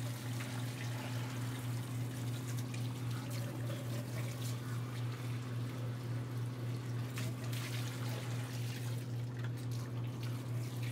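Water running from a lab sink faucet into a film developing tank and splashing, as the film is rinsed between chemical steps. A steady low hum runs underneath.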